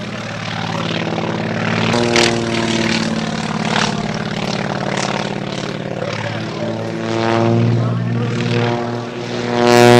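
Aerobatic biplane's piston engine and propeller droning overhead, the pitch shifting as it climbs and loops, getting louder with a rising pitch near the end.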